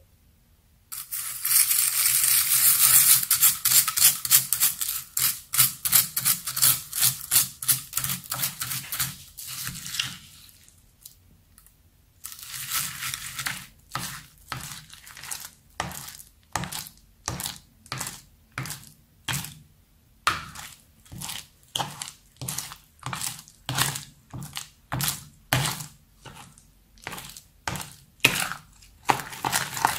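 Slime loaded with beads being stirred and folded in a glass dish, the beads crackling and crunching through it. It starts about a second in with a dense, continuous crackle, then settles into a steady rhythm of separate crunchy strokes, about three every two seconds.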